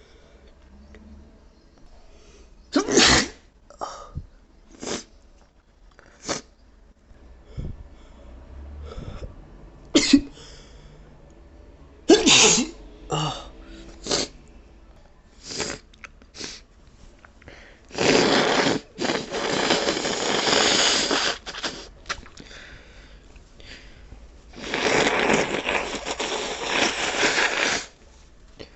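A person's allergy sneezing fit: a string of short, sharp sneezes, loudest about 3, 10 and 12 seconds in. Later come two long noisy blasts of about three seconds each.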